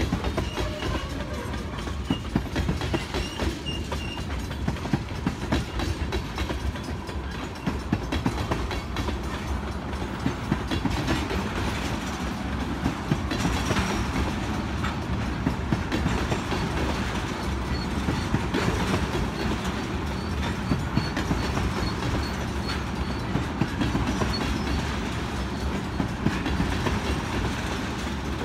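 Wheeling & Lake Erie freight train cars rolling by, their wheels clacking over rail joints: a steady rumble with a continuous, irregular run of sharp clicks.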